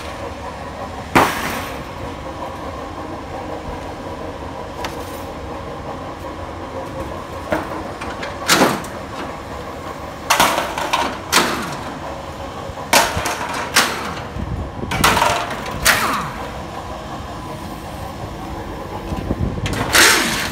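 Irregular knocks and clanks as a steel motorcycle shipping-crate frame is handled and dismantled, about ten in all, some ringing briefly, over a steady background hum.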